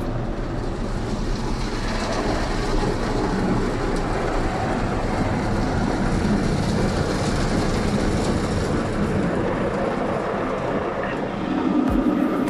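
Automatic car wash running over the van, heard from inside the cabin: a steady rushing of water and wash equipment against the body and windows.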